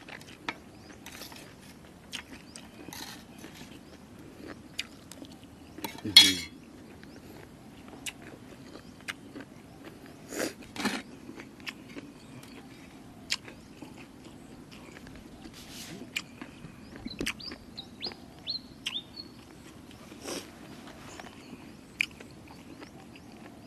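Close-up chewing and crunching of jellyfish salad, with irregular wet crunches and mouth clicks. A short voiced 'hmm' about six seconds in is the loudest sound, and a small bird chirps a few quick falling notes about two-thirds of the way through.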